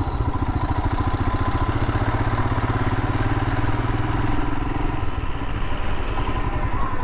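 Royal Enfield Himalayan's single-cylinder engine running steadily under way, with a fast, even pulse, heard from the rider's seat. The low note eases off about five seconds in.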